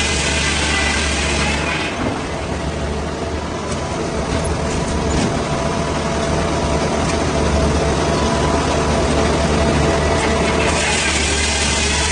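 Heavy engine running steadily, with a loud hissing rush over it for the first couple of seconds and again near the end.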